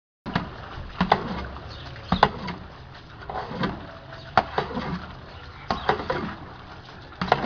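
Long metal paddle knocking and scraping against a large metal cazo as beef chicharrones are stirred in hot fat, with sharp irregular knocks every second or two over a steady faint background.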